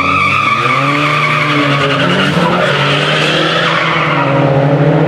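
Drag-racing car launching off the start line: its tyres squeal from the first instant, fading over about two seconds, while the engine revs up as the car accelerates away.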